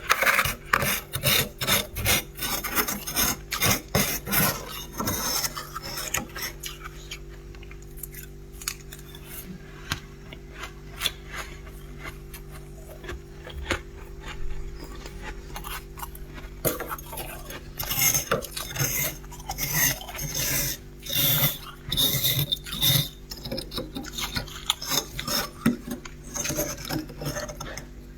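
Freezer frost being scraped and crunched in quick rasping strokes, thickest in the first few seconds and again about two-thirds of the way through, over a steady low hum.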